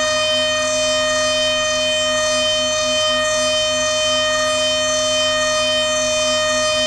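High-speed spindle of a DATRON neo+ CNC milling machine whining at one steady pitch, with a fainter lower tone pulsing a few times a second underneath.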